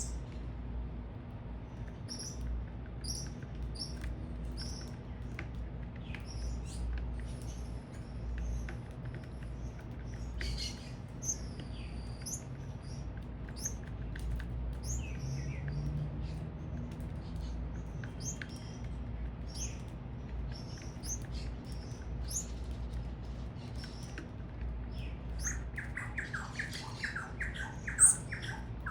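Small birds calling at a feeder: scattered short, high chirps and a few gliding whistles. About 25 seconds in, a burst of rapid, harsher squawking calls starts, with one loud call near the end. A steady low city rumble runs underneath.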